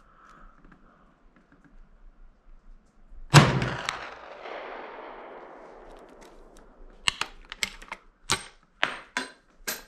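A single shot from an 1873 Springfield Trapdoor rifle firing a black-powder .45-70 cartridge: one sharp blast about three seconds in that echoes away over a couple of seconds. Near the end comes a run of sharp metallic clicks and clacks as the trapdoor breechblock is flipped open.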